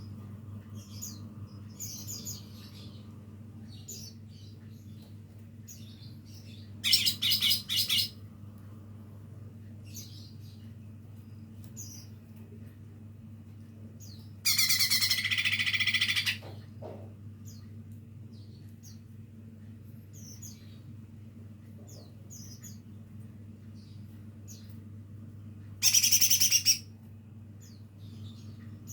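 A young cucak ijo mini (small green leafbird) practising its song in soft, scattered chirps and short twitters. Three much louder, harsh bursts break in, about 7 seconds in, near the middle and near the end. A steady low hum runs underneath.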